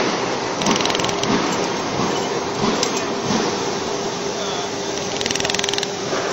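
400 W pulsed laser welder firing in bursts of rapid, even clicks, about a second in and again near the end, as it spot-welds an aluminium channel letter's side strip to its face. Underneath runs the machine's steady hum.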